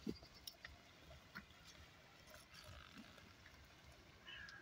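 Near silence: faint outdoor background with a few soft, scattered clicks and one brief low sound right at the start.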